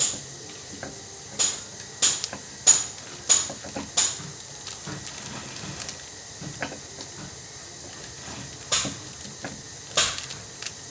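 Sharp metallic knocks, six at a steady pace in the first four seconds and two more near the end, each with a brief high ring: metal parts being struck while a washing machine gearbox is fitted.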